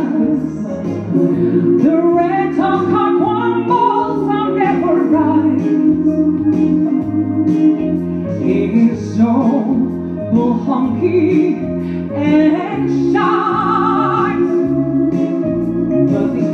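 A woman singing into a microphone over musical accompaniment with a steady low bass line. About thirteen seconds in she holds a long note with vibrato.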